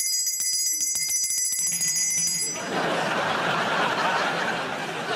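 A small silver handbell shaken rapidly, ringing for about two and a half seconds, then the studio audience laughs.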